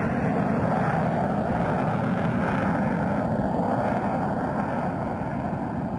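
Myasishchev M-55 reconnaissance jet flying past, its twin turbofan engines giving a steady, loud rushing roar that eases off slightly near the end.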